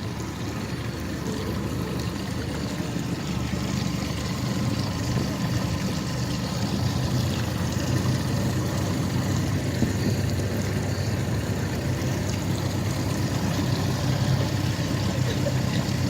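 Twin 60 hp Mercury Command Thrust four-stroke outboards running steadily with the boat under way, a low even hum over the wash of water along the hull. The sound grows slightly louder over the first several seconds.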